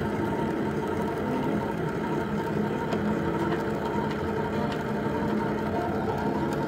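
Metal lathe with a Clough42 electronic leadscrew conversion running steadily while the tool cuts a 12 mm x 1.75 thread into a metal rod: an even machine hum with no breaks.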